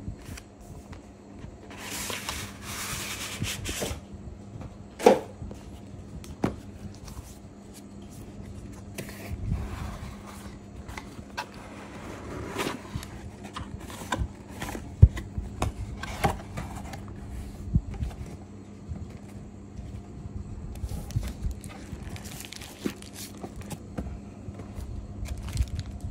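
Cardboard packaging and paper wrapping being handled: box flaps sliding and scraping, paper rustling, and now and then a sharp tap or knock on the desk. A faint steady hum runs underneath.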